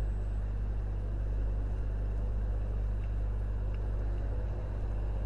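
Steady low electrical hum with background hiss, the recording's noise floor, with two faint clicks about three seconds in.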